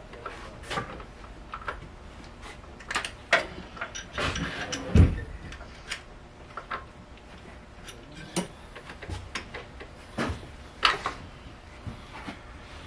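Scattered light metal clicks and knocks of hand tools and engine parts being handled during work on a car engine, with one louder knock about five seconds in.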